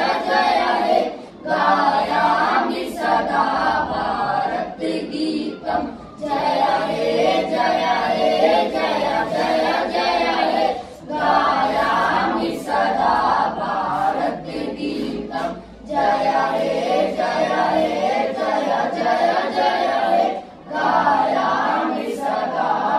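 A group of schoolboys singing together without accompaniment. They sing in phrases, with a short break for breath about every five seconds.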